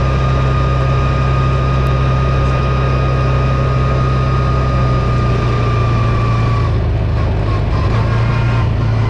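Steady running drone of a car or truck driving, heard from inside the vehicle: a constant low hum with a faint thin tone above it that drops slightly in pitch about two-thirds of the way through.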